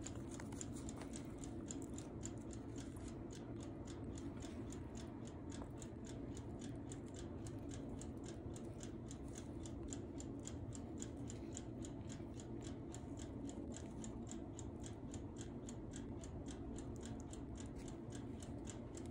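Rapid, even ticking, several ticks a second and never varying, over a steady low hum.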